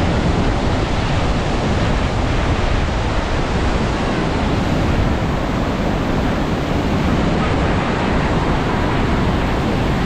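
Steady, loud roar of Niagara Falls' whitewater crashing down onto the rocks at the foot of the falls.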